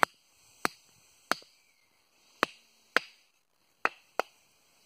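Batoning: a round wooden baton knocking on the spine of a small carbon-steel bushcraft knife (Dickmann Feather II), driving the blade down to split a small block of wood. There are about seven sharp knocks at an uneven pace, some in quick pairs.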